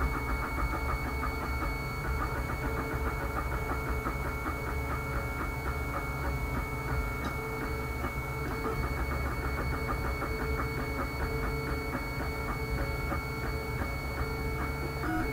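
Stepper motors of a homemade wooden-frame 3D printer driving the print head while it prints, sounding as short tones that keep changing pitch, over a steady high whine and a low hum.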